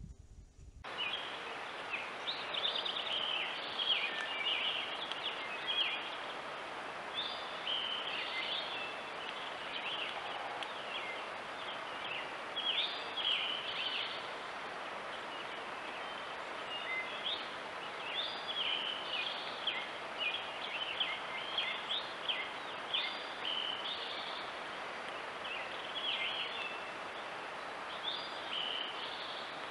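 Birds chirping and singing in short, repeated phrases over a steady hiss from a trail camera's microphone, starting abruptly about a second in.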